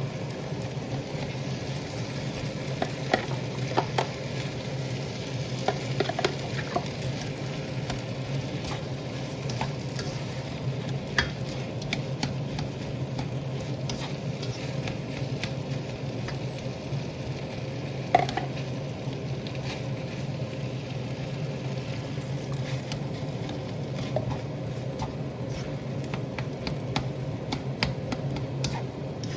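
Leftover rice and tomato sauce sizzling in a hot pan as a spatula stirs and scrapes through it, with scattered sharp taps of the spatula on the pan and one louder clank about two-thirds of the way through.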